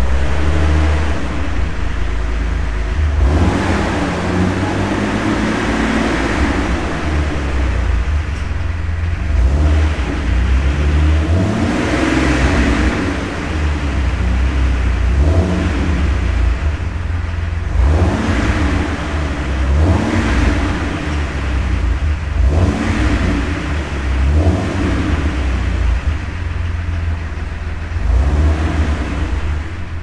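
Jeep Wrangler TJ's 4.0-litre AMC inline-six running with its accessory belt refitted: a steady low rumble that swells and eases every two to three seconds.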